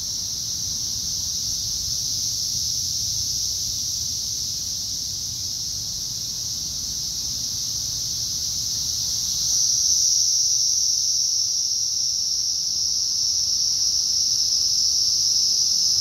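Dense chorus of Brood X periodical cicadas: a loud, steady, high-pitched drone that grows louder about nine and a half seconds in.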